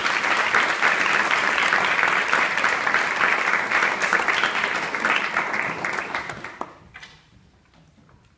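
Audience applause greeting the performers as they come on stage, a dense patter of clapping that dies away about seven seconds in.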